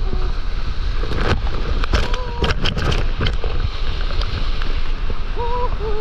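Sea water sloshing and splashing against a waterproof camera held at the surface, over a constant low rumble of water and wind on the microphone. A cluster of sharp splashes comes about one to three seconds in.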